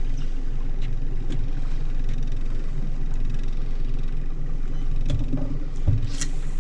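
Fishing boat's outboard motor idling steadily. A few faint ticks sound over it, and near the end there is a low knock followed by a brief hiss.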